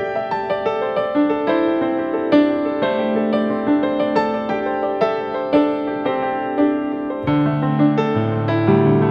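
Background music: a gentle piano melody in an even rhythm, with lower bass notes joining about seven seconds in.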